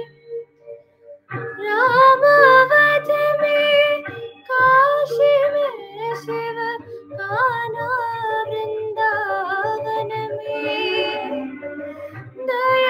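A young woman singing a Hindi song solo, in long held notes that waver and glide between pitches. After a brief pause for breath at the start, the phrase begins about a second and a half in.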